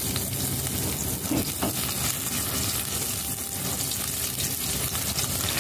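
Garlic sizzling as it sautés in hot oil in a stainless steel pot: a steady crackling hiss.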